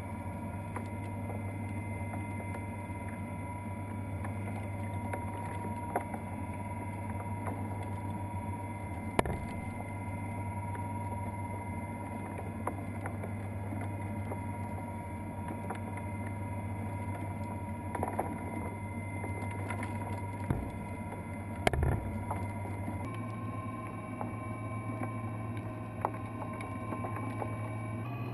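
Steady electric hum of a kinetic sculpture's motor or blower, which steps up to a slightly higher pitch near the end, with a few sharp clicks and knocks over it.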